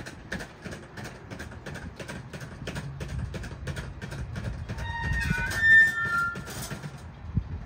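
A grade-crossing warning bell strikes about three times a second and stops about seven seconds in. Under it is the low rumble of a Union Pacific hy-rail pickup truck coming along the rails, which grows louder midway. A bird chirps briefly in the middle, the loudest moment.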